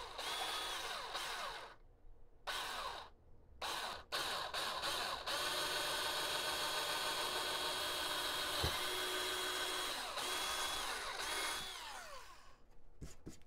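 Small cordless drill boring a long bit into the balsa wing leading edge. It gives three short bursts, then a steady whining run of about seven seconds that winds down near the end, followed by a couple of faint clicks.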